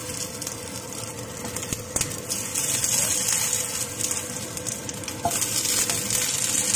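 Raw dumplings sizzling as they shallow-fry in a little oil over low heat. The sizzle steps louder about two and a half seconds in and again near the end as more dumplings are laid into the pan, with one sharp click about two seconds in.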